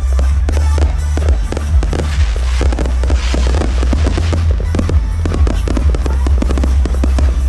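A fireworks display: a rapid run of bangs and crackling shell bursts over loud music with a heavy, steady bass.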